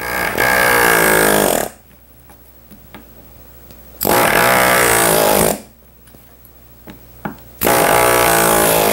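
Pneumatic staple and tack remover buzzing in three bursts of about a second and a half each, its chisel tip prying old tacks out of a wooden chair frame through the cloth edging.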